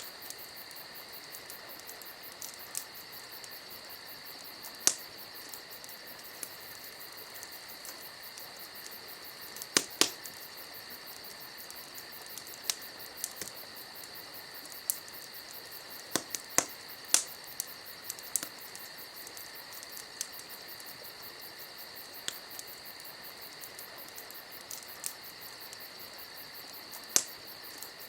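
Campfire crackling, with about a dozen sharp, irregular wood pops a second or more apart. Under it runs a steady, high insect chirring.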